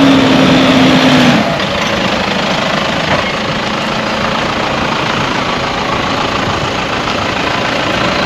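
Toyota Hilux 3.0 D-4D turbodiesel engine running at low revs as the truck reverses slowly down a boat ramp. A steady humming note over the engine stops about a second and a half in.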